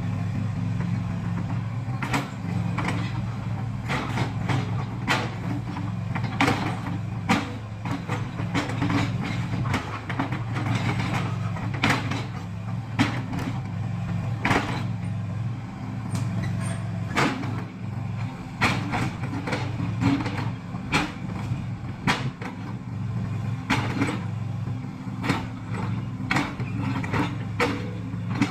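Excavator engine running at a steady hum while digging out a drain, with many sharp clanks and knocks scattered through it.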